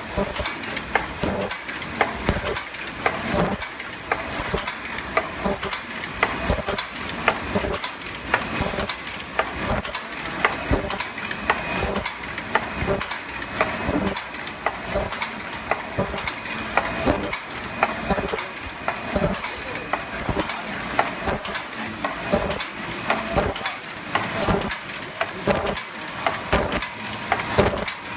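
MB-C12 paper cup forming machine running at production speed, a steady rhythmic mechanical clatter of many short knocks over a constant hiss.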